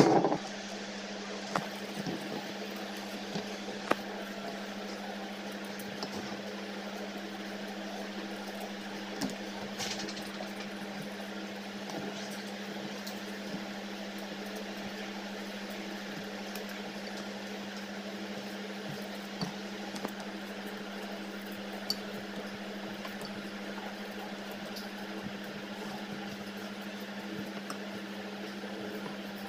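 A steady low hum, with faint scattered clicks and scrapes of a small knife peeling the skin off a wax gourd.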